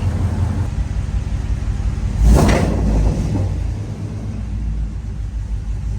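Fifth-gen Camaro SS's 6.2-litre V8 idling with long-tube headers, a steady low rumble. About two seconds in comes one loud, short thump.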